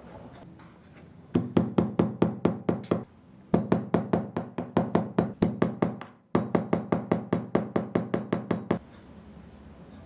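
Rapid, evenly spaced knocking, about six strikes a second, in three runs of a few seconds each with short breaks between them. Each strike rings briefly.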